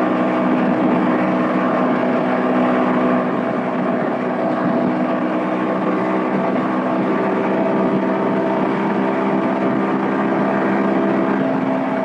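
A Vitacci XMT 250 motorcycle's 233cc engine running steadily at highway cruising speed, about 70 mph, heard from the rider's seat.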